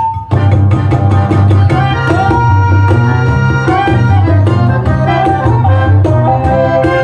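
Music played loud through a portable Bluetooth party speaker during a sound and bass test, with heavy bass, a steady beat and a melody line. The music drops out for a moment right at the start, then comes back.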